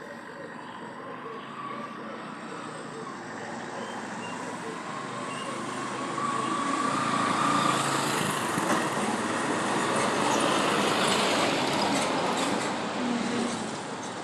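Passing road traffic: a noise that builds over several seconds, holds, then eases off near the end.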